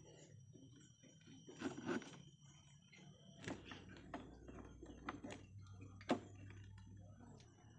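Small metal handling clicks and scrapes as a threaded steel rod is pushed through a hole in a wooden boat hull and a washer and nut are fitted onto it. A cluster of scraping sounds comes about two seconds in, and the sharpest click about six seconds in.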